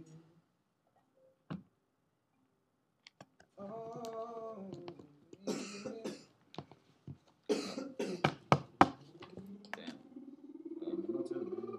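Coughing and throat clearing, with a few sharp knocks from the laptop being handled near its microphone.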